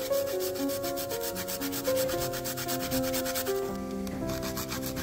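A garlic clove rubbed back and forth on a flat stainless-steel grater: a quick, rhythmic rasping scrape of many even strokes, over background music.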